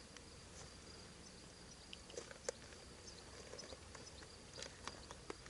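Near silence: faint outdoor background hiss with a thin, steady high tone and a few soft scattered ticks.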